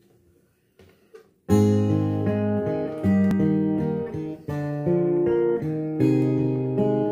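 Acoustic guitar with a capo, strummed chords starting about a second and a half in, a new chord struck about every second and a half: the instrumental intro of a song, before any singing.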